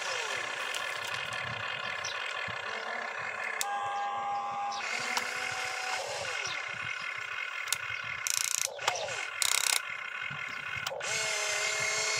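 Electric motors and gearboxes of an RC hydraulic-style excavator whining as it slews its cab and works the boom, arm and bucket. The whine changes pitch as each motion starts and stops, falling away at the end of a move. Two short, loud, rough bursts come about two-thirds of the way through.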